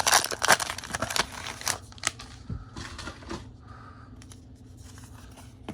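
Foil Pokémon booster pack wrapper crinkling and cards being handled: dense crackling for the first two seconds, then a few scattered light ticks.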